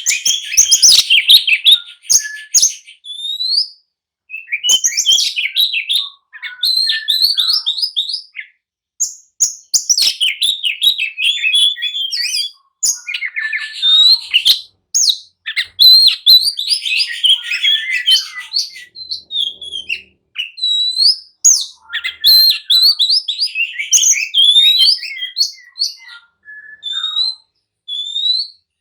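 Oriental magpie-robin (kacer) singing hard in fast, varied bursts of whistles, rising notes, trills and chirps, phrases of one to three seconds broken by short pauses. It is the agitated, non-stop song keepers call 'gacor emosi', a male in a fighting mood.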